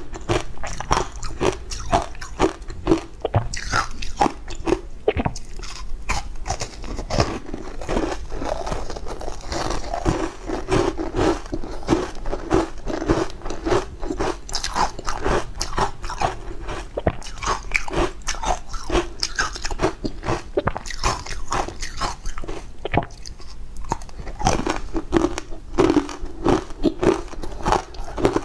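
Ice cubes coated in green powder being bitten and chewed close to the mouth: a continuous run of crisp crunches, several a second.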